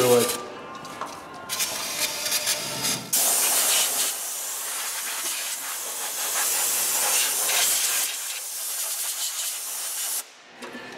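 Aerosol cleaner spraying in short hisses. From about three seconds in, a compressed-air blow gun takes over with a steady, louder hiss that cuts off about ten seconds in.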